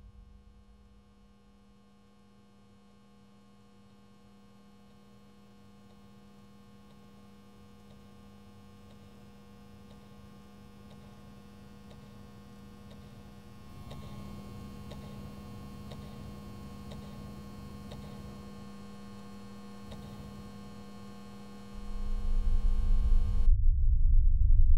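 A steady electrical hum with a low buzzing tone and many overtones, slowly growing louder and stepping up about halfway through. Near the end it stops abruptly as a loud, deep rumble swells up.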